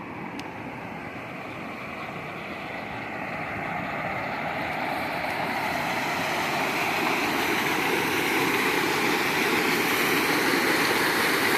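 Waterfall rushing, a steady roar of falling water that grows steadily louder over the first several seconds and then holds.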